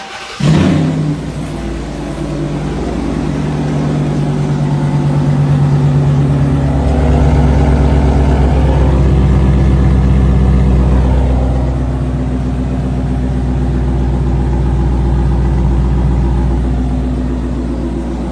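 A 2016 Dodge Charger's engine starting with a loud flare about half a second in. It then settles into a steady, deep-rumbling run that swells a little louder for a few seconds midway.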